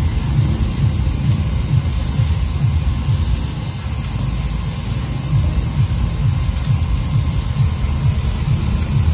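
Manual engraving machine's spindle motor running steadily while its rotary cutter routes lettering into a black-and-white plastic tag plate. The sound is an uneven low rumble with a high hiss over it.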